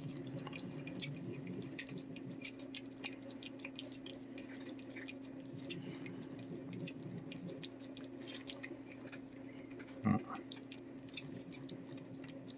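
A cat licking a paste treat from a squeeze tube: a run of small wet tongue-and-mouth clicks over a steady low hum. A short thump stands out about ten seconds in.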